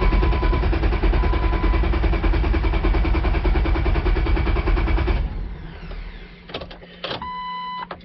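Starter motor cranking the 2004 Jeep Wrangler's 4.0-litre straight-six for about five seconds without the engine catching, then stopping, followed by a few clicks and a short beep. The hard start is blamed on a cam sensor fault (code P0340) that puts cam and crank out of sync.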